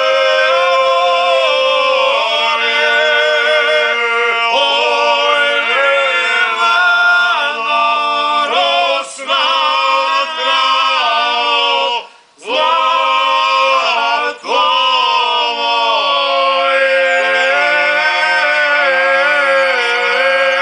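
Three men singing unaccompanied in close harmony, several voices holding long, drawn-out notes together. They break off for short breaths about a third of the way in, just past halfway and again soon after.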